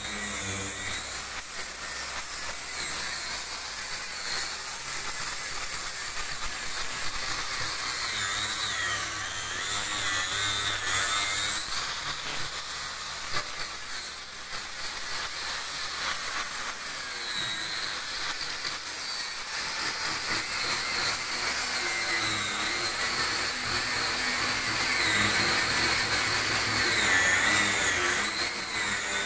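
MIG welding on a boat hull's plating: the arc runs with a steady, high-pitched crackling hiss.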